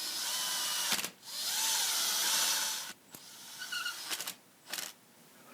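Power drill driving screws into wood: a short run of the motor, then a longer run of about two seconds with a whine that rises and falls, followed by a few brief trigger pulls.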